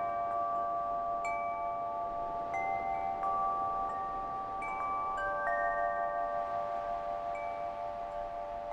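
Soundtrack of chime tones: bell-like notes at different pitches struck about once a second, each ringing on and overlapping the others. A soft hiss swells in near the end.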